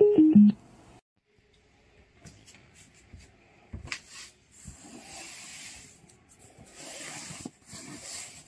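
A Bluetooth speaker's prompt tone at the start: four short notes stepping down in pitch. Then near quiet, followed by scattered rustling and handling noises with two longer hissy stretches.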